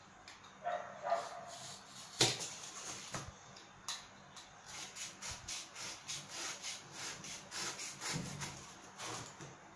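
Utility knife cutting corrugated cardboard to trim a strip shorter: a regular run of short scraping strokes, about three a second, through the second half, with a sharp click about two seconds in.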